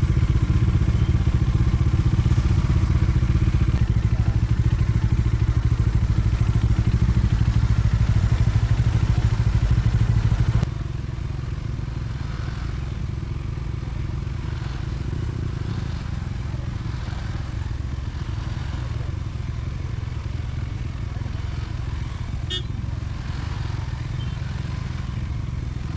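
Motorcycle engines idling in stopped traffic, a steady low rumble. About ten seconds in it drops abruptly to a quieter, steady idle.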